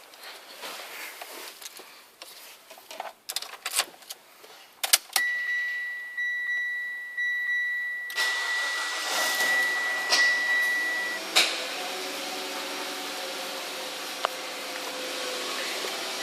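Clicks and knocks of getting into the car, then a steady high electronic beep tone. About eight seconds in, a Mitsubishi Lancer Evolution X engine starts from cold and settles into a steady idle with no knocking yet, which sounds totally normal.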